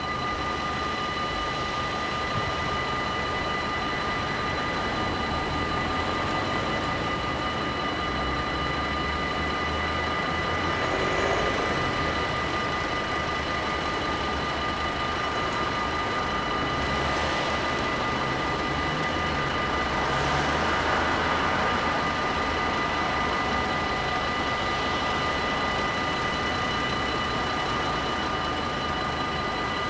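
Warning bells of a Dutch automatic half-barrier level crossing ringing continuously while the barriers are down, over the low rumble of traffic waiting at the crossing.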